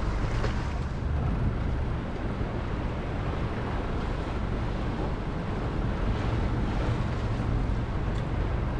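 Wind noise on the microphone: a steady low rumble and hiss with no distinct events.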